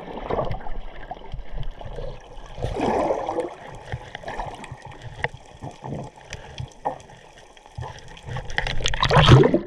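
Muffled water sloshing and gurgling around an underwater camera, with scattered small bubble pops. About nine seconds in comes a louder rush of splashing and bubbles, the loudest sound.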